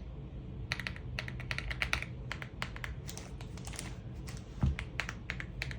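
Keys of an AULA F75 mechanical keyboard being pressed in an irregular run of clacks, with one low thump near the end.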